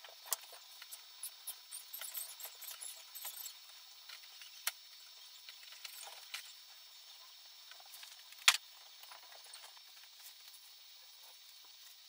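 Scattered small clicks and light rustling from hands handling cables and tools, busier in the first few seconds, with one sharp click about two-thirds of the way in.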